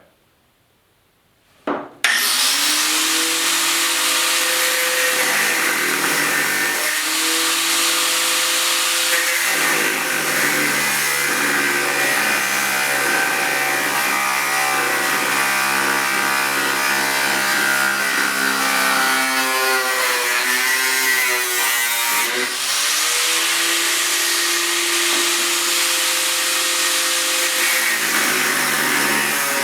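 A power tool grinding half-inch square steel stock to shape one side straight for a new blade guide. It starts suddenly about two seconds in and runs steadily as a harsh hiss over a humming motor, and the hum's pitch dips and shifts several times as the work is pressed on.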